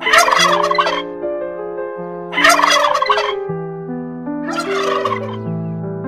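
Male turkey gobbling three times, each gobble about a second long, the third a little fainter, over soft background piano music.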